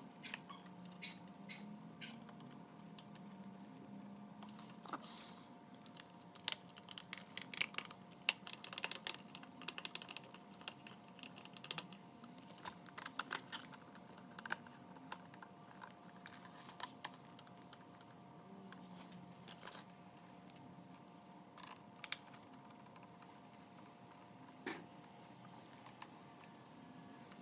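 Faint, irregular clicks and taps of hard plastic parts being handled and small screws being turned with a hand screwdriver into a plastic side-mirror camera mount, over a faint steady hum.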